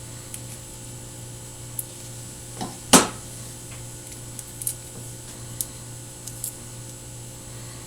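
Small clicks and ticks of hands working the wires of an HDMI cable, with one sharp knock about three seconds in, over a steady low hum.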